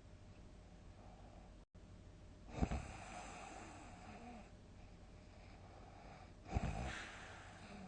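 A sleeping person snoring: two loud, abrupt snorts about four seconds apart, each trailing off into a breathy rasp.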